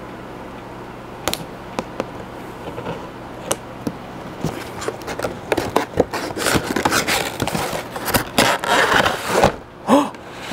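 Scissors snipping at a cardboard figure box a few times, as separate sharp clicks. From about halfway through, dense crackling, rustling and scraping of cardboard packaging as the box is worked and pulled open.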